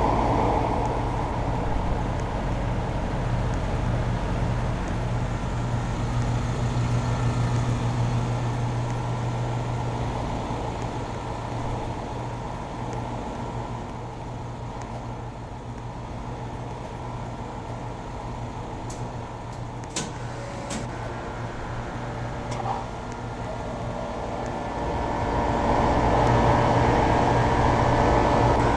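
LG Multi V 5 VRF air-conditioning system running, a steady mechanical hum from its compressor and fans. The sound swells and eases, loudest at the start and again near the end, with a few sharp ticks about two-thirds of the way through.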